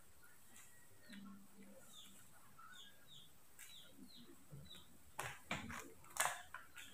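A small bird chirping: a quick run of about ten short, high, falling chirps. Near the end come several louder short crunches.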